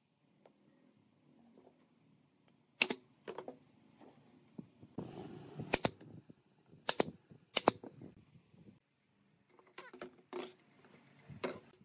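Brad nailer shooting nails into pine boards: about six sharp shots spread over several seconds, two of them close together. A few more knocks of wood near the end.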